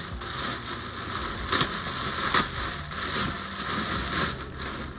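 Food frying in hot oil in a pan: a steady sizzle with crackles and a couple of sharper pops about a second and a half and two and a half seconds in.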